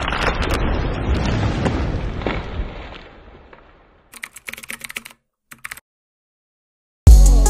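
Intro sound effects: a loud rumbling boom that fades away over about three seconds, then two short runs of rapid clicks. Music with a heavy bass beat starts just before the end.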